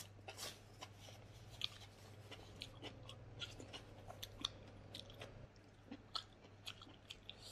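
Close-up chewing and biting of smoked pork leg, heard as faint, scattered soft clicks and crunches. A low steady hum runs underneath and stops about two-thirds of the way through.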